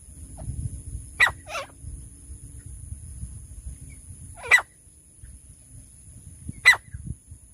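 A francolin gives loud, sharp, short calls: a two-note call about a second in, then single calls a few seconds apart.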